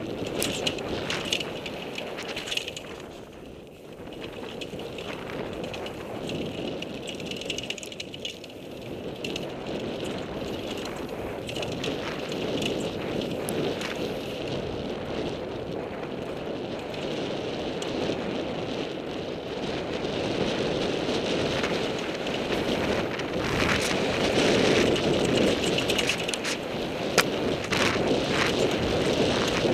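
Mountain bike descending a rough dirt trail at speed: wind rushing over the helmet camera's microphone, tyres on dirt, and the bike rattling with frequent sharp knocks over bumps. It grows louder toward the end.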